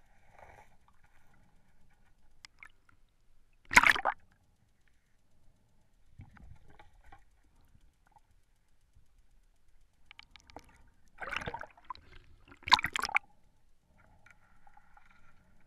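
Underwater bubbling and gurgling: three short, loud bursts, one about four seconds in and two close together around eleven to thirteen seconds, over a faint low rumble of the water.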